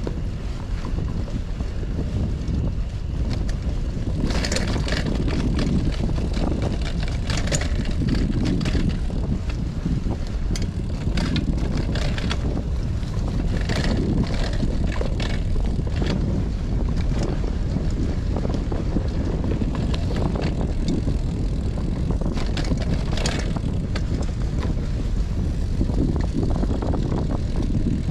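Wind rumbling on the microphone while riding a Cannondale CAADX gravel bike along a dirt trail, with scattered crackles and rattles of the tyres and bike over rough ground. The rumble is steady and loud throughout, and the rattles come thickest through the middle.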